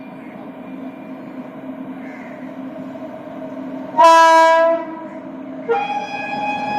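Locomotive approaching with a steady rumble that grows louder, then sounding its horn: one loud short blast about four seconds in, and a second, longer blast starting near the end.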